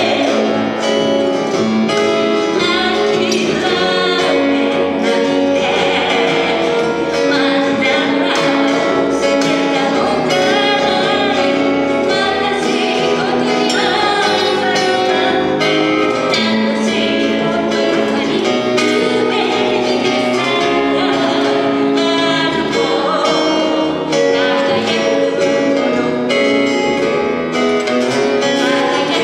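Live acoustic jazz trio: a woman singing over two acoustic guitars and a double bass.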